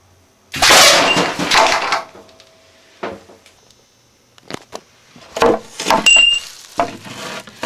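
A homemade solenoid-valve air cannon firing: a sudden loud blast about half a second in as the air is released and the metal rod projectile smashes into a laminated particleboard target, the noise fading over about a second and a half. Scattered knocks and rustles follow as the target is handled.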